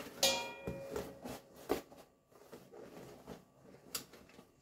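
A plastic carry bag rustling as it is pulled off cardboard takeaway food boxes, which are handled and set down with a few sharp knocks. A brief ringing clink comes about a quarter second in.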